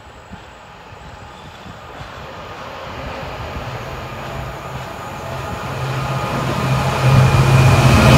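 Class 66 diesel-electric locomotive's two-stroke V12 engine hauling a container freight train, approaching and growing steadily louder, with a steady low engine note that is loudest at the end as it draws alongside.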